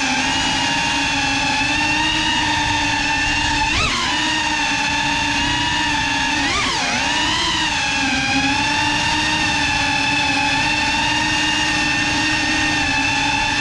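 Motors and ducted propellers of a GEPRC Cinelog 35 cinewhoop drone whining steadily in flight, picked up by the onboard camera. The pitch swoops briefly about four seconds in and again near seven seconds as the motors speed up and slow.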